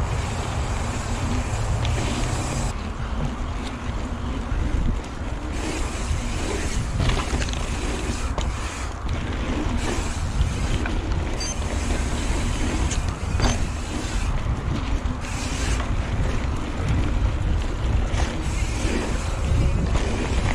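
Wind buffeting the camera microphone over the rumble of a downhill mountain bike's tyres rolling on a dirt trail, with a few sharp clicks and knocks from the bike along the way.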